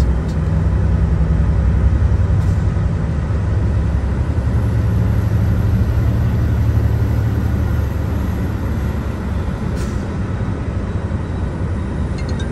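Sounder commuter train passing at speed: the diesel locomotive's steady low drone, then the rumble of the bilevel coaches, heard through the windows of a car.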